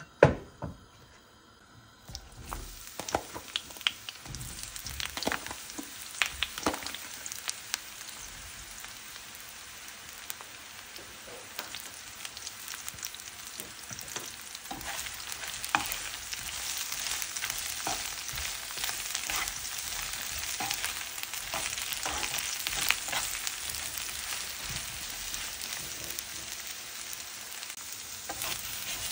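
A sharp knock just after the start, then about two seconds in, sliced aubergine starts sizzling in hot olive oil in a frying pan, a steady hiss with scattered pops and clicks that grows louder toward the middle.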